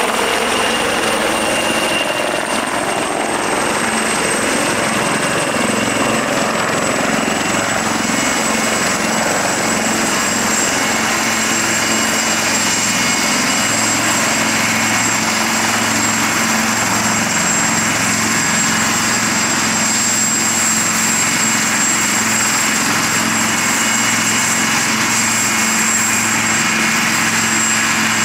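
British Army AW159 Wildcat helicopter touching down from a low hover and then running on the ground with rotors turning. Its twin turboshaft engines give a steady high whine, dipping slightly in pitch in the first several seconds, over a continuous rotor roar.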